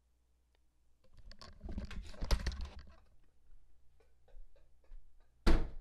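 Scattered clicks and rustling from movement at a desk, densest from about one to three seconds in, then one sharp, loud knock near the end.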